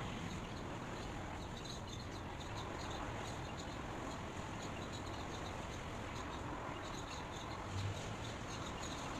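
Steady outdoor ambient noise with small, scattered high chirps from birds, and a brief low bump near the end.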